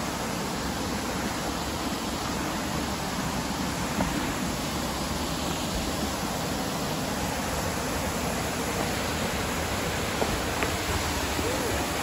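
Steady rush of water spilling over a small rocky cascade into a pool.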